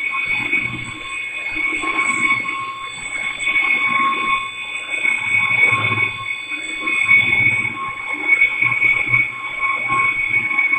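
BMW brake disc being turned on a lathe, the cutting tool on the spinning disc giving a steady high-pitched squeal in several tones over a low, uneven machine rumble.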